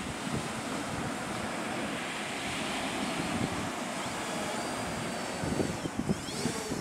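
Sea waves breaking and washing on a pebble shore, a steady rushing surf with wind buffeting the microphone. A few sharp knocks and a faint high whine come in near the end.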